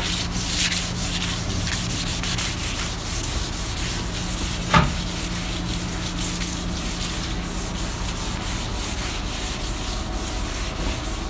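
Hand sanding of a teak handrail with 400-grit sandpaper: repeated quick back-and-forth rubbing strokes that smooth the wood ready for varnish. A single sharp knock sounds about halfway through, over a steady low hum.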